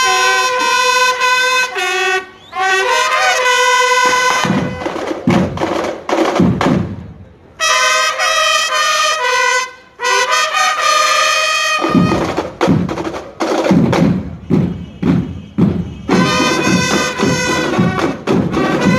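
School marching band playing a fanfare: trumpets open with sudden, long held chords, break off for stretches of snare and bass drum strokes, then come back in over the drums near the end.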